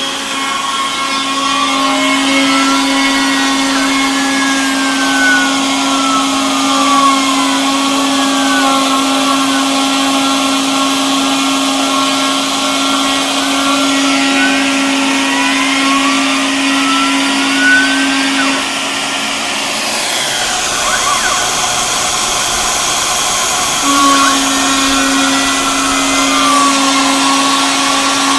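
Homemade CNC router running a job: the RotoZip spindle whines steadily while the NEMA 23 stepper motors whine in pitches that glide up and down as the axes speed up and slow down. The steady low hum drops out for a few seconds about two-thirds of the way through, then comes back.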